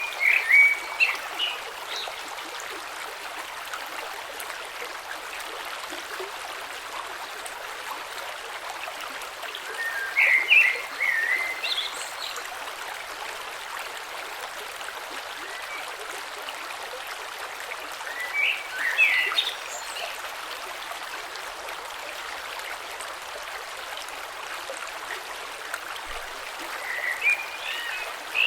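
Creek water flowing with a steady, gentle rush. About every nine seconds, four times in all, a bird sings a short phrase of quick chirping notes over it.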